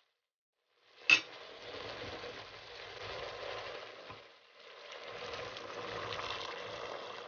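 Water poured through a mesh strainer into a hot pot of sautéed pork belly, tomatoes and onions, hissing and sizzling as it hits the hot pan, in two stretches with a short break in the middle. A sharp clink of metal about a second in, after a second of near silence.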